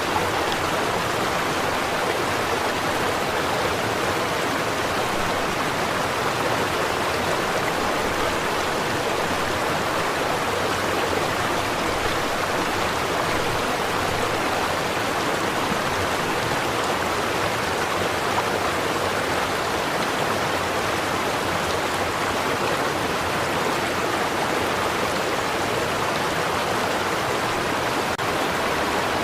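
Stream of water flowing and babbling over rocks, a steady, even rush with no breaks.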